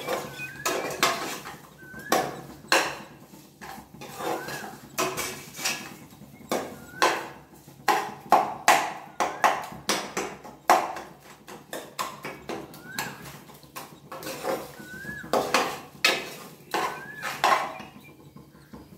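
Steel ladle scraping and knocking against the sides and bottom of an aluminium pressure cooker while stirring thick masala, in quick irregular clacks. A faint short rising chirp repeats every second or two behind it.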